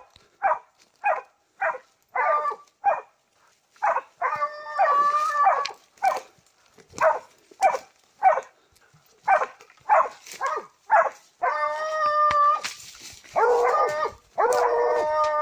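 Hunting dogs on a wild hog, barking in short sharp calls about two a second, then breaking into long drawn-out bays about four seconds in. Near the end the howling bays of more than one dog overlap as they close on the hog.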